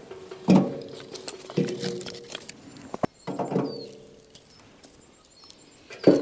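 Four heavy knocks spaced unevenly, each leaving a brief ringing tone that dies away, like strikes on wood.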